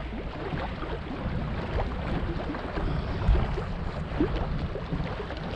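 Wind buffeting the microphone in a steady low rumble, over the rush of moving water around a canoe.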